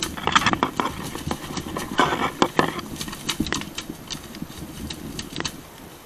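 Dry grass and brush burning and crackling while the flames are beaten with leafy tree branches, with irregular sharp snaps and swishing rushes of struck vegetation, the strongest near half a second and two seconds in, easing off toward the end.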